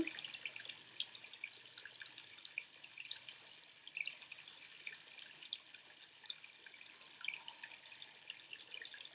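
Faint room tone with many soft, scattered ticks and clicks.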